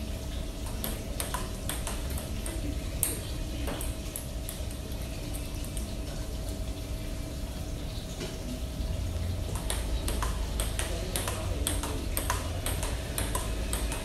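Table tennis rally: the ball clicking off the paddles and bouncing on the table, about two hits a second, thinning out in the middle and picking up again for the last few seconds.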